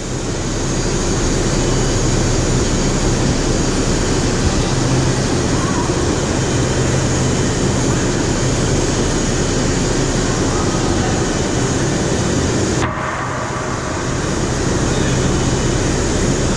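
Steady loud machinery drone with a low hum from an overhead crane hoisting a heavy turbine casing. It drops off suddenly about thirteen seconds in and builds back up over the next second or so.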